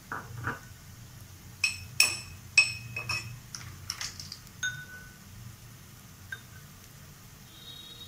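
Light ringing clinks of kitchen utensils: a couple of soft taps at the start, then a quick cluster of about six clinks from about one and a half to four seconds in, and one last ringing clink near five seconds.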